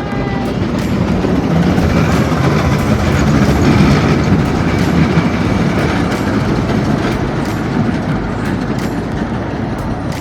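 Small zoo train running along its track: a loud, steady rumble with wheel clatter.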